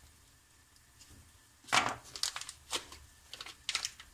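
Paper butter wrapper crinkling and crackling as it is peeled open, in a quick run of sharp rustles starting a little before halfway through.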